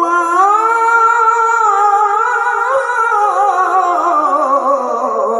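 A qari's voice through loudspeakers, holding one long melismatic recitation phrase that wavers through ornaments and slowly sinks in pitch.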